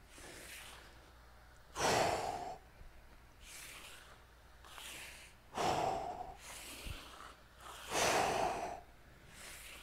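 A man breathing hard from exertion: about six heavy breaths, the loudest about two, six and eight seconds in.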